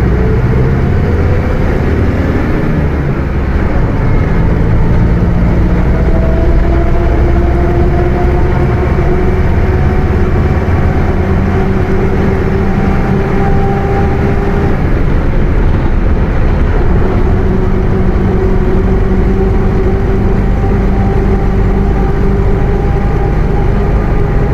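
Mercedes-Benz OF 1721 BlueTec 5 bus under way, its diesel engine running under a loud differential whine that climbs slowly in pitch as the bus gathers speed. The whine drops out briefly about halfway through, then rises again.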